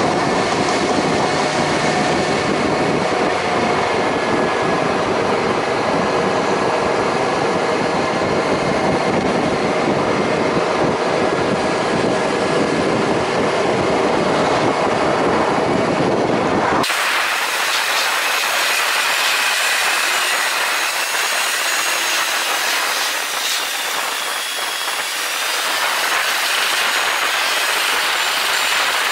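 Suzuki SV400S V-twin motorcycle riding at speed: engine running with steady wind and road noise. About two-thirds through, the sound changes abruptly, losing most of its low rumble.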